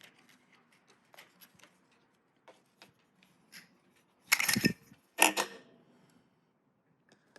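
Crank Brothers M19 metal multi-tool being handled and set down for weighing: faint clicks and taps, then two louder metallic clatters about four and five seconds in.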